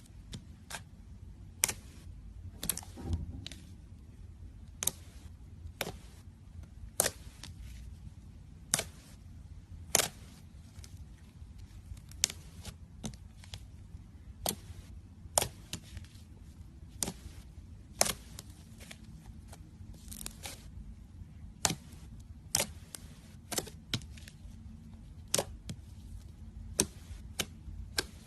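Slime being pressed and stretched by hand, giving sharp irregular pops and clicks, about one or two a second, over a low steady hum.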